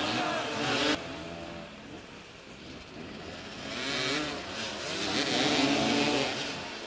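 Several motoball motorcycles' engines revving up and down as the riders jostle for the ball. The sound drops off abruptly about a second in, then builds again with more revving in the second half.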